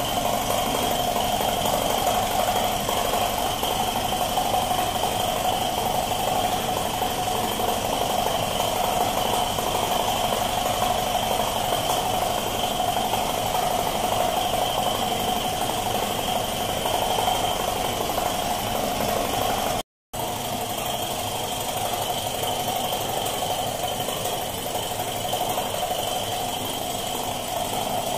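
Air compressor running steadily, feeding a gravity-feed spray gun that hisses as it sprays paint. There is a constant high whine over the hiss. The sound drops out for an instant about two-thirds of the way through.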